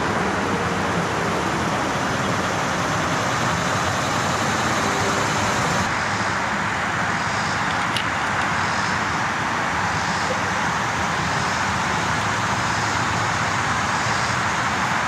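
Steady outdoor background noise: an even, unbroken hiss like distant road traffic. There is a single faint click about eight seconds in.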